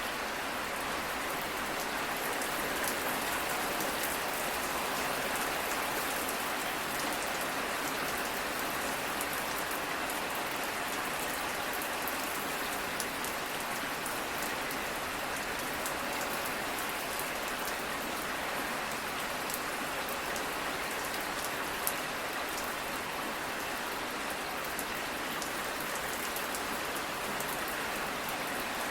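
Steady rain falling, with many small ticks of individual drops striking a surface over an even hiss.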